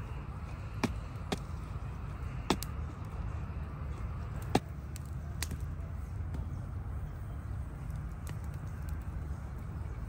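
Sharp wooden cracks and pops from a campfire and dry sticks being handled over it, about seven of them at uneven gaps, the loudest about four and a half seconds in, over a steady low rumble.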